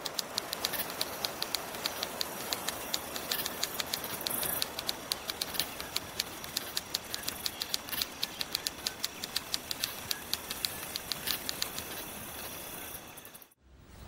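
Typewriter-style typing sound effect: rapid, evenly spaced key clicks, about four a second, over a steady hiss, cutting off abruptly shortly before the end.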